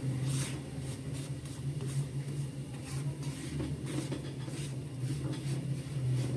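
Spatula scraping and stirring semolina as it roasts in a non-stick wok, a short scrape with each stroke, over a steady low hum.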